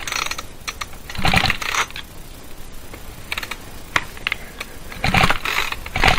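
Recoil pull-starter of a Ryobi 16-inch two-stroke chainsaw yanked several times in a row, each pull a short rattling whir, with the engine not catching.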